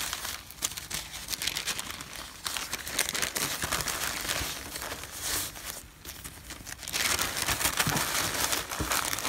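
Sheets of newspaper being folded and crumpled by hand to wrap a bundle, an irregular crinkling and rustling. There is a brief lull about six seconds in, then busier crinkling.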